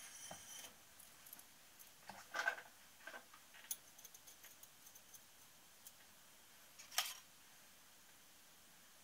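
Faint light clicks and scrapes of thin oil ring rails being handled and fitted around a cast aluminium piston, with a louder cluster about two and a half seconds in and a sharp metallic click about seven seconds in.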